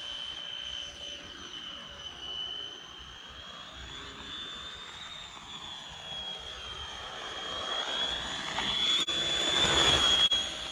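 Scratch-built RC oval car's motor and drivetrain giving a steady high-pitched whine as it laps a banked concrete track. The pitch drifts slightly up and down, and the sound swells as the car passes close near the end.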